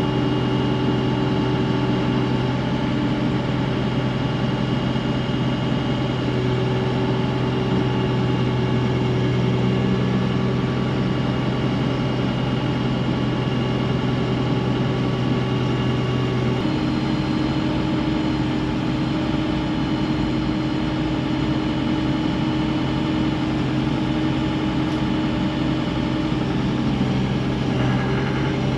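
Mecalac 8MCR excavator's engine running steadily, heard from inside the cab, its tone changing about two-thirds of the way through.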